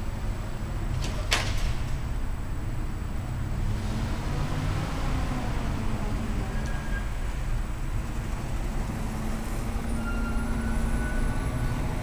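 Road traffic: a low steady rumble of vehicle engines, with a sharp click about a second in.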